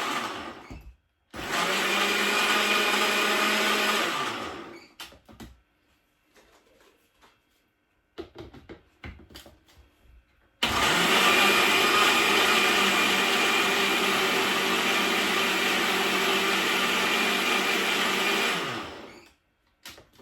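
Small electric blender puréeing fresh herbs, ginger and garlic with a little water into green seasoning, run in bursts. It stops about a second in, runs for about three seconds, and after a pause with a few light knocks it runs again for about eight seconds before winding down.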